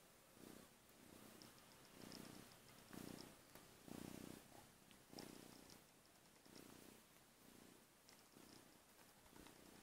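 Young orange long-haired kitten purring softly while being stroked, the purr swelling and fading about once a second with its breathing, loudest about four seconds in.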